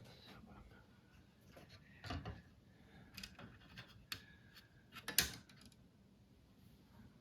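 Scattered clicks and knocks with some rubbing, from the parts of a dismantled LED scrolling message display being handled. The loudest knock comes about five seconds in.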